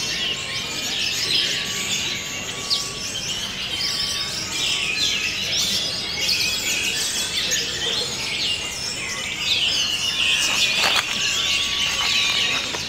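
Orange-headed thrushes singing in contest cages: a dense, continuous stream of quick, varied whistled phrases and chatters, several songs overlapping.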